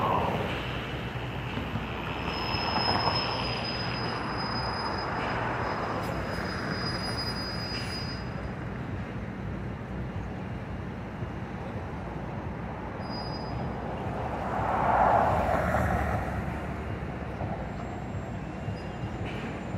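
Street traffic noise: a steady rumble with vehicles swelling past three times, loudest about fifteen seconds in. A thin high squeal is held from about two seconds in to about eight seconds in.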